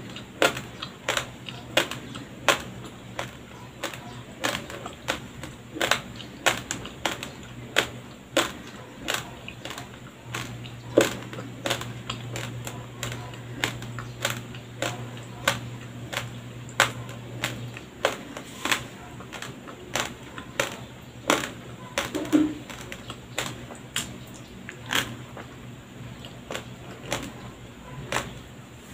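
Uncooked white rice grains crunching between the teeth as a mouthful is chewed close to the microphone, sharp crunches coming about twice a second.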